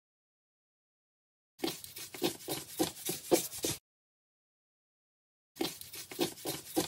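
Rhythmic crunching of fresh snow, about three or four crunches a second, in two short stretches broken by dead silence.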